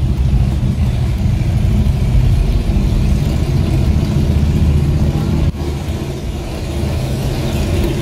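Low, steady drone of a car's engine and road rumble heard from inside the cabin while driving slowly, stepping down a little about five and a half seconds in.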